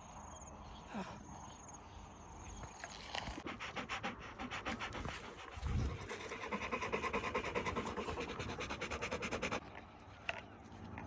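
Dog panting fast and hard in an even rhythm, hot and worn out from the walk in the heat; the panting stops suddenly near the end. A dull low bump about six seconds in.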